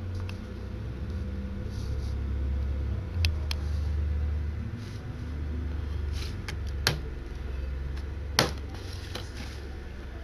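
Plastic DVD case being handled, giving a few sharp clicks and knocks. The loudest comes about eight seconds in, as the case is closed and set down on a wooden table. A low steady hum runs underneath.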